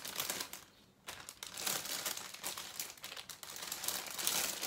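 Plastic packaging crinkling and rustling as it is handled and unwrapped, with a brief pause about a second in.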